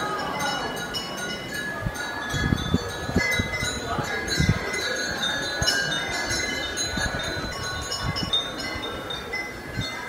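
Many small temple bells ringing together, with high, overlapping strikes whose tones keep ringing and run into one another. Low thuds come in between about two and five seconds in.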